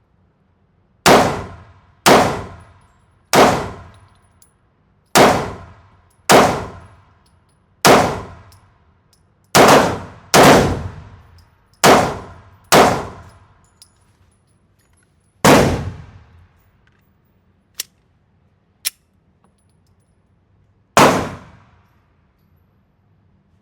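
Twelve single gunshots at an indoor shooting range, fired at an unhurried, uneven pace of roughly one a second, each ringing out with a short echo. There is a long pause after the eleventh shot, with two light sharp clicks, before a last shot near the end.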